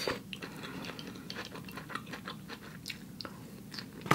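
Close-miked chewing of a mouthful of rice vermicelli noodles: soft, irregular wet mouth clicks and smacks, with a louder click near the end.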